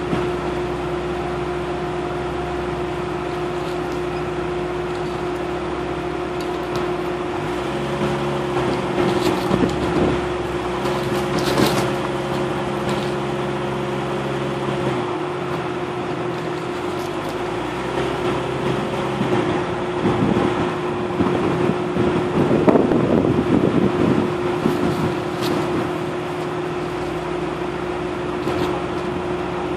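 Off-road vehicle engine and drivetrain running at trail speed, heard from inside the cab, with a steady hum whose pitch shifts about 8 and 15 seconds in. Knocks and rattles come from the vehicle jolting over the rough trail between about 18 and 25 seconds in.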